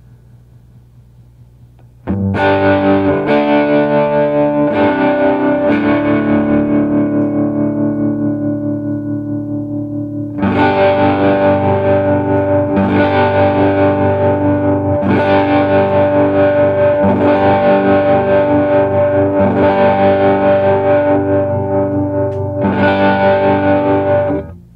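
Les Paul-style electric guitar with Southern Cross humbuckers, 50s wiring and linear 500k pots, played through distortion. After a faint amp hum, a chord is struck about two seconds in and rings out, fading; from about ten seconds in chords are strummed over and over in a steady rhythm, cutting off sharply near the end.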